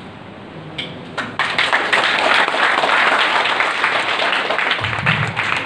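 Audience applauding: many people clapping, starting suddenly about a second and a half in.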